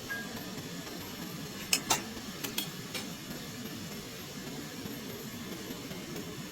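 A handful of sharp knocks: two loud ones close together about two seconds in, then three lighter ones over the next second, over a steady low hum.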